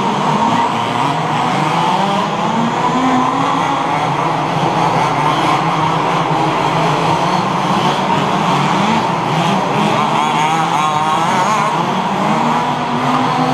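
Several 1/5-scale HPI Baja RC buggies' small two-stroke petrol engines running at once during a race, each pitch rising and falling as the throttle is opened and closed.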